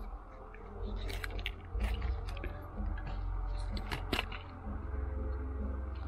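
Small clicks and scrapes of a broken GoPro HERO7 Black's parts being handled and pried apart, several scattered ticks over a steady low rumble.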